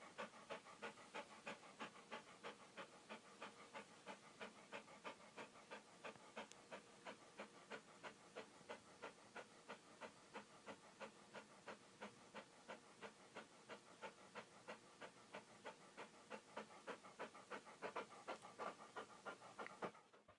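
A dog panting in a fast, even rhythm, about four breaths a second.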